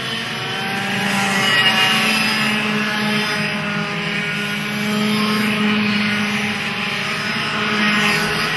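A pack of two-stroke racing kart engines buzzing as the karts lap the circuit. Several engines overlap, their pitch rising and falling as the drivers accelerate out of corners and lift off into them.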